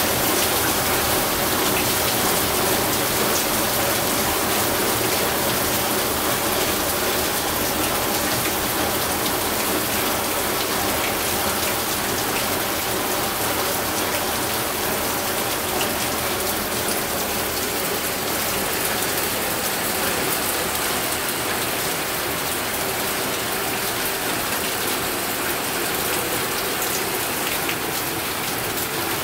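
Steady heavy rain falling on corrugated roofing: an even hiss dense with small, sharp drop taps.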